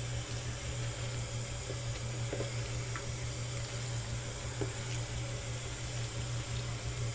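Cold water running steadily from a sink tap, an even hiss of flowing water, to rinse a wig.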